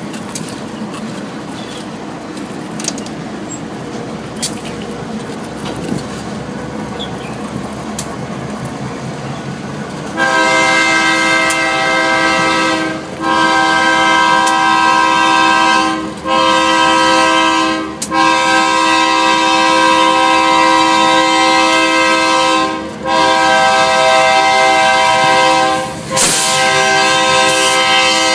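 Ferromex diesel freight locomotives running past. About ten seconds in, a locomotive's multi-note air horn starts blowing a series of long blasts with brief breaks between them, louder than the train's running noise.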